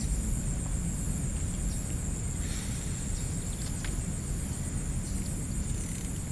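Insects chirring steadily in a high, pulsing band over a steady low rumble, with a few faint clicks.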